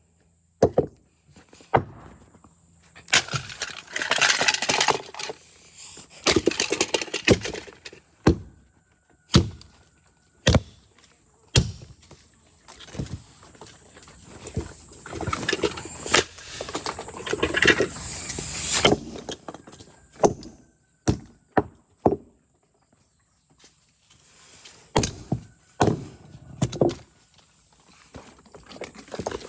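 Irregular sharp knocks and clicks with longer stretches of rattling and scraping, from hard plastic parts of a smashed alarm clock being handled and knocked about.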